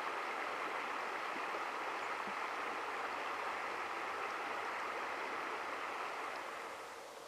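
Steady rush of flowing river water, easing down a little near the end.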